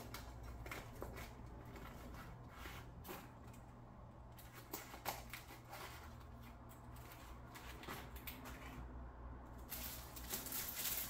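Close-up handling sounds: soft rustling with scattered light clicks and taps, as packaging is opened, growing busier and louder near the end.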